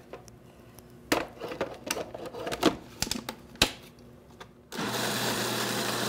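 A few knocks and clatters of kitchen utensils, then about three-quarters of the way in a food processor switches on and runs steadily, blending squash, eggs and sugar.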